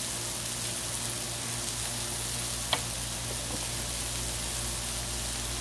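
Smashburger patties sizzling on a Blackstone flat-top griddle, a steady frying hiss, with one sharp click almost three seconds in.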